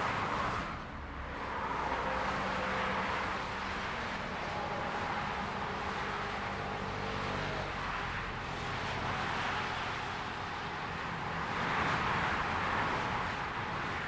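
Motorway traffic on an autobahn: cars and vans passing at speed, a continuous tyre-and-wind rush that swells as vehicles go by, loudest near the start, about two seconds in and around twelve seconds in. A low engine hum runs underneath through the middle.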